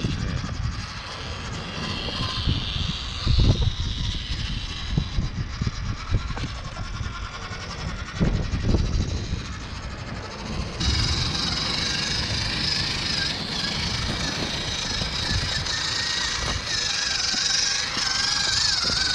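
Small electric 1/16-scale WPL RC crawler truck climbing over rock: its motor and gears whine, rising and falling with the throttle. Several low knocks come as the tyres and chassis bump on the rock, louder about a third of the way in and again near halfway.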